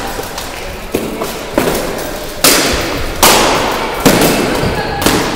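Steel swords striking shields and plate armour in armoured sparring: about six heavy blows, a little under a second apart, each ringing out with a long echo in a large hall.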